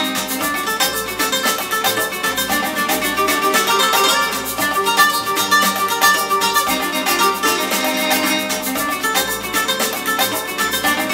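Aurelia Magneta II bookshelf loudspeakers playing music of quick, closely spaced plucked-string notes, guitar-like, picked up by a camera's built-in microphone, which leaves it with little bass.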